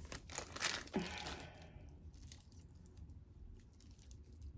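Plastic packaging crinkling with short clicks as a watch band is handled, mostly in the first second and a half, then faint.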